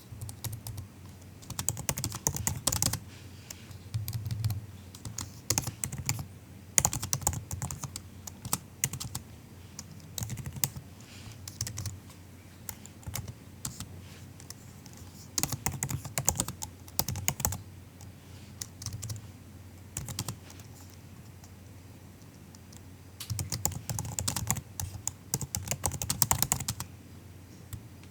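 Soft typing on a MacBook laptop keyboard: quick runs of keystroke clicks lasting a second or a few, separated by short pauses.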